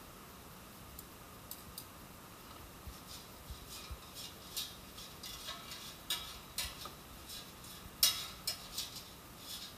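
Metal tongs clinking and scraping against a Chiwawa CAF-606 air fryer's non-stick basket while tossing french fries. A few light clicks at first, then a busier run of clinks from about three seconds in, the loudest near the end.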